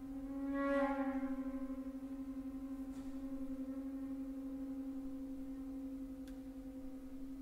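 Flute holding one long low note that swells about a second in and then slowly fades, the tone wavering with an even pulse.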